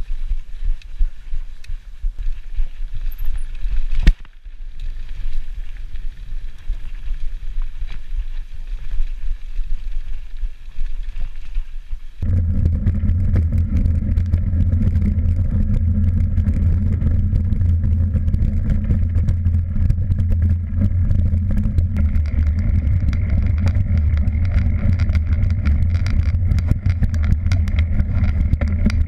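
Mountain bike riding a dirt trail, heard through an action camera's microphone: tyre and trail rumble with wind on the mic and rattling clicks, a sharp knock about four seconds in. About twelve seconds in it changes abruptly to a louder, steadier low rumble.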